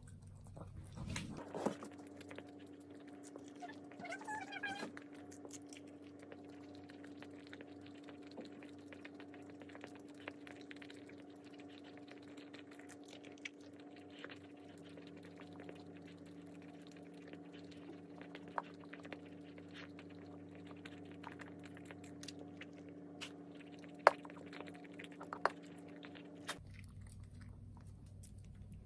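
Shih Tzu mix dog eating a raw-food meal of ground meat from a glass bowl: wet chewing and mouthing, with scattered small clicks, one sharp click late on. A steady low hum runs underneath.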